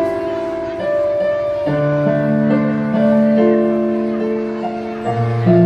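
Electronic keyboard playing slow music: held chords under a simple melody, the chord changing about every two seconds.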